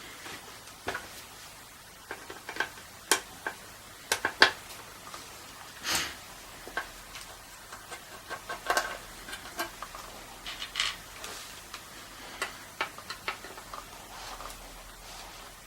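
Irregular small clicks and taps of a screwdriver and small parts being handled while retaining screws are undone from a Ford car radio's case, with a short scrape about six seconds in.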